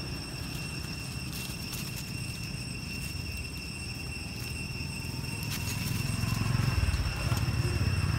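Outdoor background: a steady low rumble that grows louder about six seconds in, with faint steady high-pitched tones above it.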